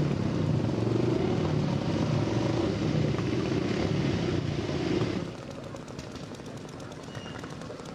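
Small engine of a 1902 veteran motor-bicycle running with a fast, rapid putter as the machine rides along. The level drops suddenly about five seconds in.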